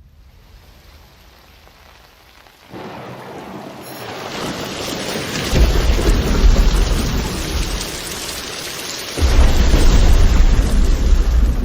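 Thunderstorm: rain hiss starts suddenly about three seconds in and builds, with two heavy rolls of thunder, one a little past the middle and another near the end, each with a deep rumble.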